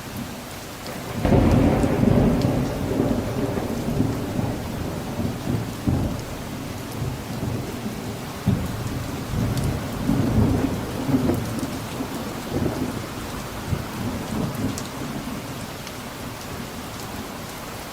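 Steady rain falling, with a rolling peal of thunder that breaks about a second in and rumbles on in uneven surges, dying away near the end.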